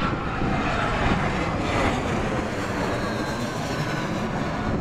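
Jet airliner passing during a landing approach: a steady, loud engine rumble with a faint whine above it.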